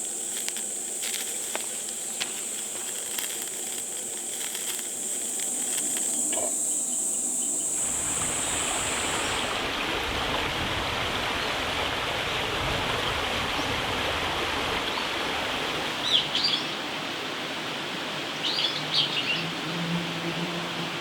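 Outdoor ambience. A steady high-pitched insect buzz, like crickets, stops about nine seconds in. From about eight seconds a steady rushing noise takes over, and a few short bird chirps come twice near the end.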